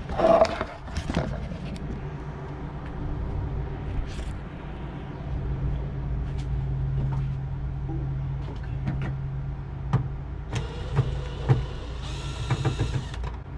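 Cordless drill whining in short runs near the end as it backs screws out of a car liftgate's plastic trim panel, with clicks from the screws and panel. Knocks and handling clatter come about a second in, over a steady low hum.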